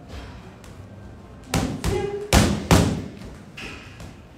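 Boxing gloves punching a freestanding heavy bag: a quick combination of about five thuds starting about a second and a half in, the later punches the loudest.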